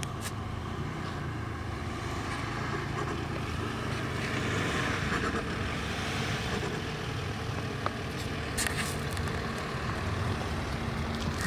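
Diesel SUV (2011 VW Touareg TDI) driving over off-road terrain: steady engine running with tyre and body noise, and a few short knocks about eight seconds in.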